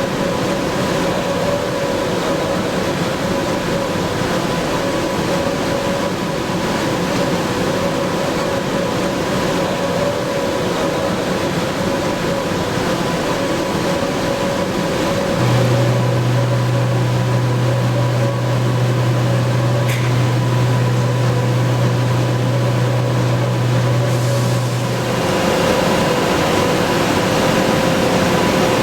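Röders high-speed milling machine cutting steel: a steady machining noise with fixed spindle tones. About halfway through a strong low hum comes in and holds for about ten seconds, then stops as the sound changes and a faint high tone appears.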